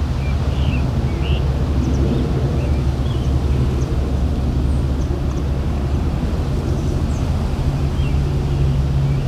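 Wind buffeting the microphone in a low rumble, with a steady low hum that grows stronger in the second half, and scattered short bird chirps throughout.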